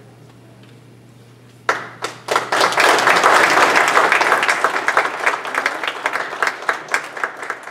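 Audience applauding: clapping breaks out about two seconds in, swells quickly into full applause, then thins to scattered separate claps near the end.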